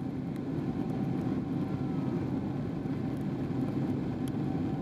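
Steady cabin noise of a Boeing 777-300ER's GE90-115B turbofan engines at climb power just after takeoff, heard from inside the passenger cabin, with a faint steady tone over a deep, even rush.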